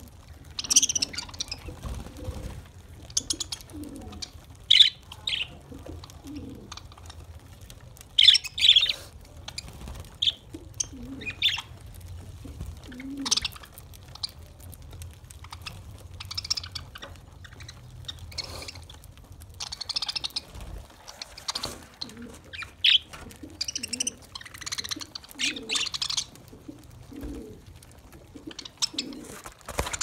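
A flock of budgerigars chattering and chirping while feeding, with clusters of loud, high calls every second or two over a steady lower chatter.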